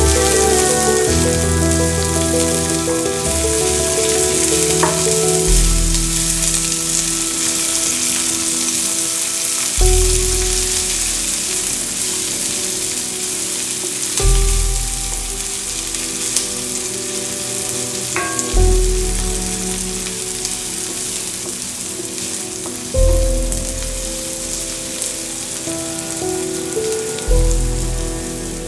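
Diced red onion sizzling and frying in olive oil in a cast-iron skillet, stirred now and then with a wooden spatula. Soft background music runs under it, with a deep note about every four seconds.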